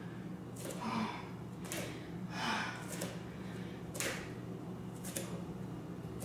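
A woman's sharp breaths and the soft landings of her bare feet on an exercise mat during side-to-side jump hops, about one a second.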